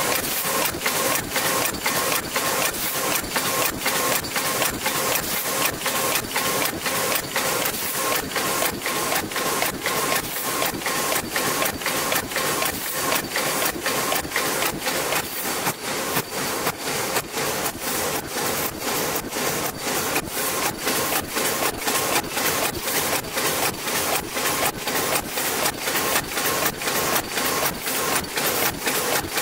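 NewTop FW125S paper bowl forming machine running at production speed, a fast, even clacking of its indexing turret and forming stations at about three strokes a second, over a steady hiss and hum.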